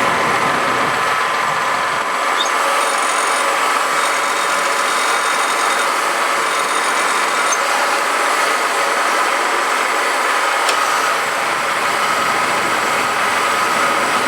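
Farm tractor engine running steadily under load as it tows a pickup truck on a chain.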